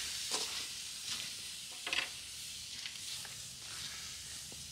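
Steak and shredded potatoes sizzling with a steady hiss over campfire coals, with a few short scrapes of a spatula stirring the potatoes in a cast iron skillet, the loudest near the middle.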